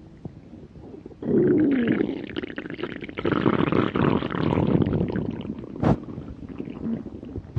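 A person's stomach growling: a loud gurgling rumble starts about a second in, opening with a falling growl and running on as dense, crackling gurgles. A single sharp click comes about six seconds in.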